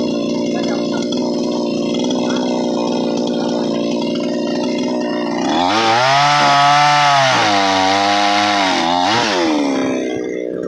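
Chainsaw engine running at a steady low speed, then revving up about five seconds in and cutting into wood, its pitch sagging under load. Near the end it drops back to a lower speed.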